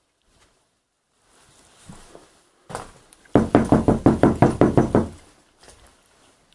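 Rapid knocking: one sharp knock, then a quick even run of about a dozen knocks, some six or seven a second, lasting under two seconds.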